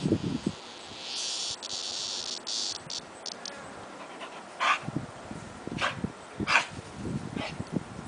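A cicada buzzing harshly while a dog paws at it, the buzz cutting in and out for about two and a half seconds, then a few short, separate rasps. Irregular low rustling and breathing from the dog in the grass run underneath in the second half.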